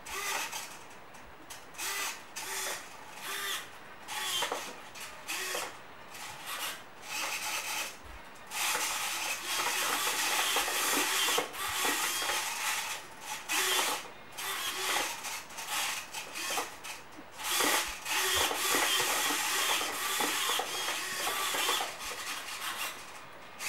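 Small hobby servo motors in a 3D-printed robotic hand's forearm whirring in short, repeated bursts as they drive the fingers. About eight seconds in, the bursts run longer and nearly continuous as several fingers move together.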